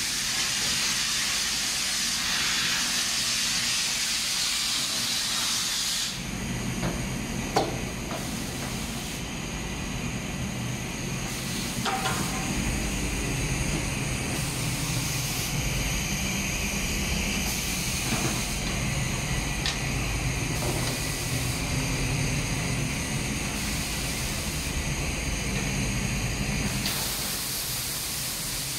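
Compressed air hissing steadily from a blow-off lance as the powder booth walls are blown clean during a colour change. About six seconds in, the sharp hiss gives way to a lower rushing noise, with the high hiss cutting in and out roughly every two seconds, and a single knock a little later.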